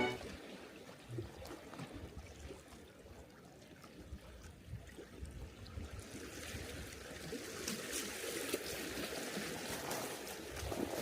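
Faint trickling water, with a hiss that grows louder about six seconds in.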